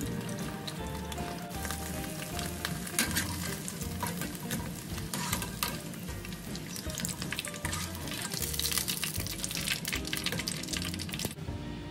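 Battered squid rings deep-frying in hot oil in a wok, a steady crackling sizzle. It cuts off near the end.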